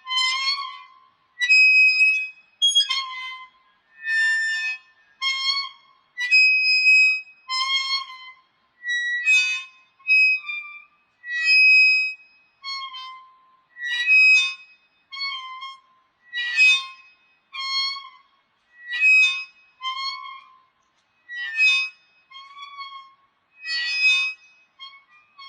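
Swing squeaking as it swings back and forth: a steady string of loud, high-pitched squeaks, about one a second.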